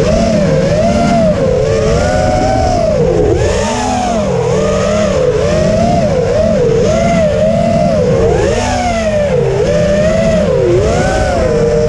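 Racing quadcopter's Emax 2205 2600KV brushless motors and propellers whining in fast flight, the pitch swinging up and down every second or so as the throttle changes.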